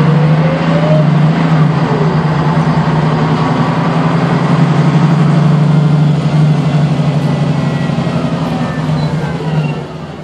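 Jelcz 120M/3 city bus's diesel engine and drivetrain heard from inside the passenger cabin as the bus drives, a steady low hum with a rising whine in the first second. It eases off and gets quieter near the end.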